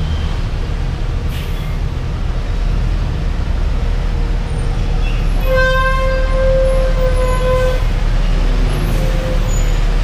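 A vehicle horn blares once for a little over two seconds, about halfway through, with a shorter faint toot near the end, over a steady low rumble of engines.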